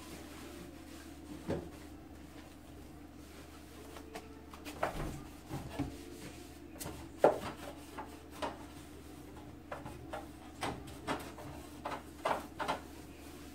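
A cleaning cloth wiping and rubbing against kitchen wall tiles, with irregular light knocks and taps from hand contact, over a steady low hum. The loudest knock comes about halfway through, and a quick run of taps comes near the end.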